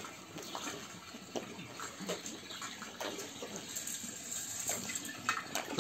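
Water splashing and trickling in a small fish pond, with scattered little splashes at the surface.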